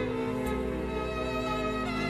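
Background music: a slow string melody with long held notes that change about half a second in and again near the end.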